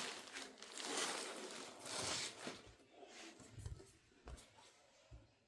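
Packaging being handled during an unboxing: rustling and crinkling in two swells over the first two seconds, then fainter rustles with a few soft knocks.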